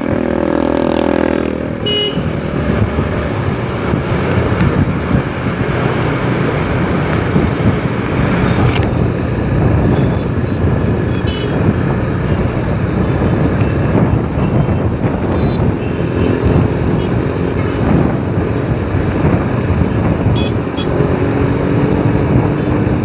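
TVS Apache motorcycle being ridden at speed, its single-cylinder engine running under a steady rush of wind and road noise, with traffic around. The engine's pitch climbs gradually near the end.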